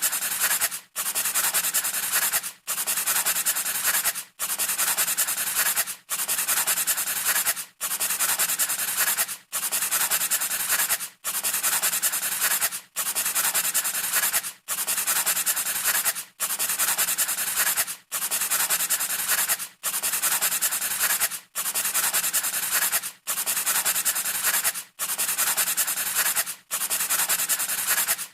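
Pencil scratching on paper in long, evenly repeated strokes, each about a second and a half, with a brief pause between them. The pattern is so regular that it sounds like a looped sound effect.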